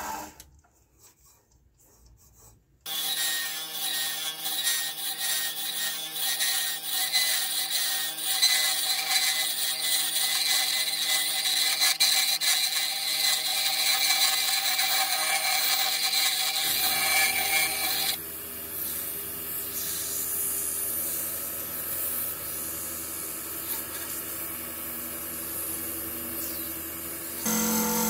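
Wood lathe spinning a Maackia amurensis burl pen blank while a hand-held turning chisel cuts it: a steady motor tone under dense scraping from the cut. It starts after about three seconds of near silence, and about two-thirds through the tone shifts lower and the scraping eases.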